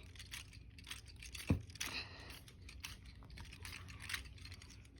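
Light, irregular clicks and taps of plastic fidget spinners being handled and set spinning, with one sharper knock about a second and a half in.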